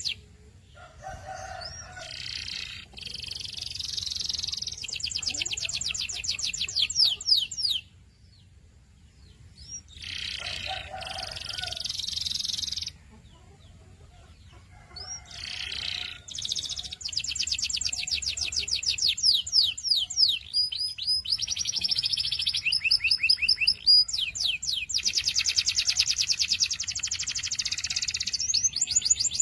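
Domestic canary singing in long phrases of fast, even, high trills and rolls, some ending in quick pitch sweeps. The song breaks off briefly about a quarter of the way in and again near the middle, then runs on almost without a break.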